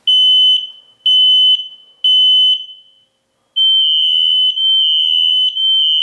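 Hardwired Kidde smoke alarms sounding their high-pitched alarm beep after a button press to reset them: three beeps about a second apart, a short pause about three seconds in, then beeps from several interconnected alarms running together, nearly without a break.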